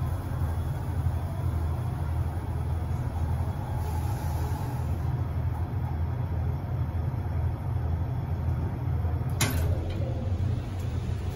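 OTIS Gen2 traction lift running, a steady low rumble, with one sharp click about nine and a half seconds in.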